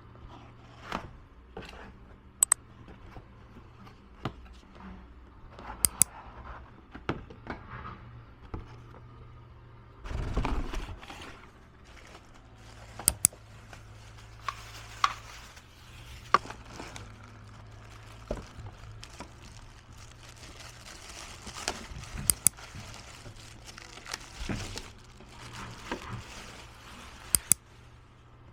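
Scattered clicks, taps and rustling of objects being handled, with a louder rustle about ten seconds in, over a low steady hum.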